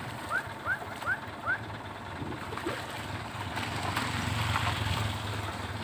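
A motor vehicle passes on the road, its low engine hum and tyre noise swelling to a peak about four to five seconds in. Four short rising chirps come in quick succession in the first second and a half.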